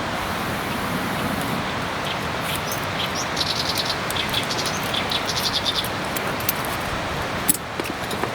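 Steady outdoor rushing noise with a small bird twittering a quick run of high chirps in the middle and scattered sharp clicks. A sudden click and break come near the end.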